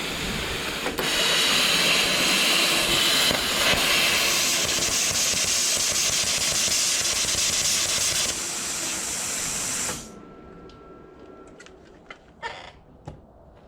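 Plasma cutter hissing loudly as its arc and air blast cut through steel. The hiss cuts off abruptly about ten seconds in as the circuit breaker trips, overloaded with a second welder running on the same supply.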